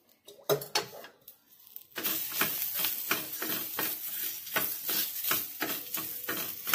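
Charred onion pieces sizzling in a little hot oil in a small frying pan, stirred with a wooden spatula that scrapes and knocks against the pan. A few knocks come about half a second in; from about two seconds in, the sizzle and the quick run of spatula strokes go on steadily.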